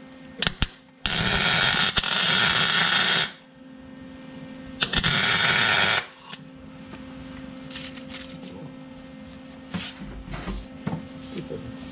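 Wire-feed (MIG) welder welding steel: two short runs of crackling, hissing arc, the first about two seconds long starting a second in, the second about a second long near the middle, with a couple of sharp spits just before the first.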